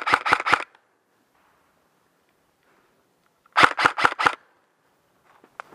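M4-style airsoft rifle firing two short bursts of sharp cracking shots at about seven shots a second, the first ending within the first second and the second, of about five shots, coming past the middle, with quiet between them.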